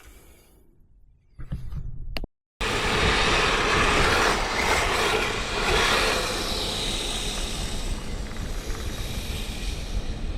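Quiet room sound, then after an abrupt cut about two seconds in, a loud, steady rushing noise of wind buffeting the microphone outdoors.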